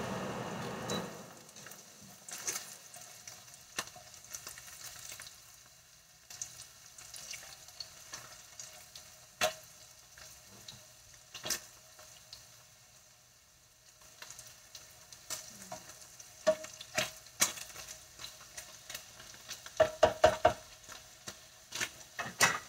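Spam slices frying in shallow oil in a nonstick skillet: a steady faint sizzle with scattered sharp pops from spattering oil, louder in the first second. Near the end a quick run of clicks and taps as tongs turn the slices against the pan.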